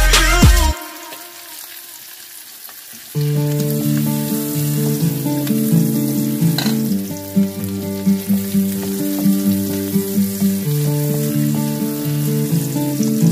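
Garlic, carrot strips and dried shrimp sizzling in hot oil in a wok while being stir-fried, with the slotted spatula scraping and one sharp clink about seven seconds in. Music stops just after the start, and soft instrumental background music comes in about three seconds in and plays over the sizzling.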